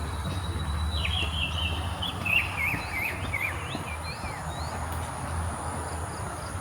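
Outdoor ambience: a bird chirping a quick run of short notes in the first half, over a steady high insect drone and a low rumble.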